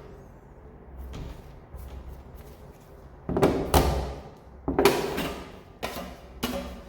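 A 6-inch putty knife scraping lightweight putty across a door's surface in several strokes: two longer ones about three and a half and five seconds in, then two short ones near the end.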